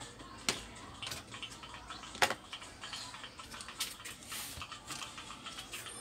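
Scattered small clicks, taps and light rattles of cables and small computer parts being handled on a workbench, with one sharp click a little after two seconds in.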